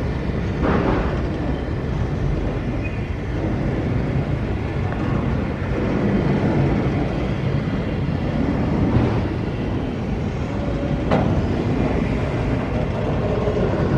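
Train cars rolling past: a steady low rumble of steel wheels on the rails, with a few sharp clanks.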